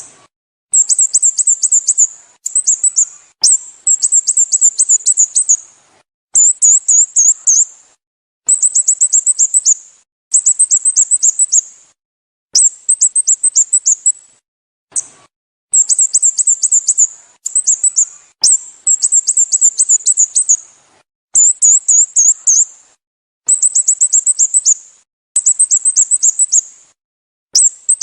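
Sooty-headed bulbul calling: bouts of rapid, very high-pitched chirps, each bout lasting one to two seconds, repeated about a dozen times with short gaps between them.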